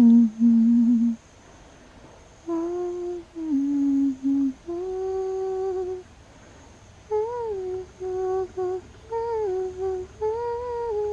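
A person humming a slow, simple lullaby tune in held notes with short pauses between them, to soothe a baby woolly monkey toward sleep.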